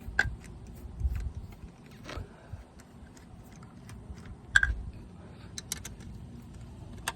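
Irregular metallic clicks and clinks of hand tools and bolts as crankcase bolts are undone, with one sharper clink about four and a half seconds in.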